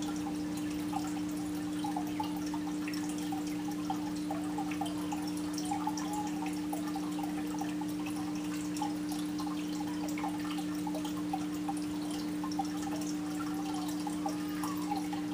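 Aquarium filter running: a steady low hum with water trickling and dripping, and many small scattered ticks of falling drops.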